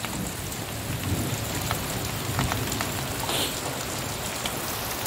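Steady rain falling on the ground and vegetation, with a few separate drops striking close by.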